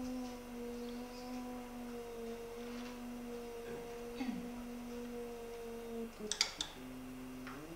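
Zeiss Visalis 100 phacoemulsification machine's feedback tone during nucleus chopping: a steady hum with overtones whose pitch signals the aspiration level. It dips briefly about four seconds in, breaks up with a few sharp clicks near six seconds, and shifts pitch near the end.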